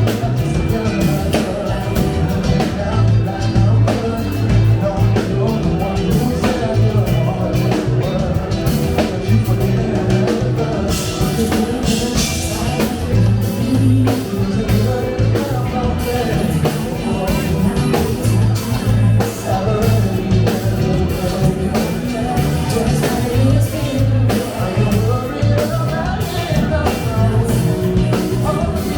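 Live funk and soul show band playing, with singing over a steady beat.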